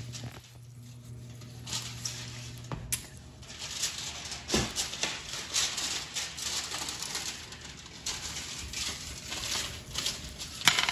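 Seasoned salt shaken from a plastic shaker bottle over roasted pumpkin seeds in a ceramic dish: irregular short rattling shakes, with granules pattering onto the seeds.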